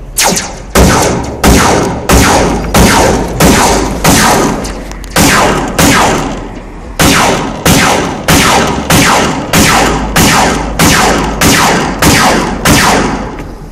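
A series of about twenty loud, sharp blows, roughly one and a half a second, each ringing out briefly, with two short pauses in the run.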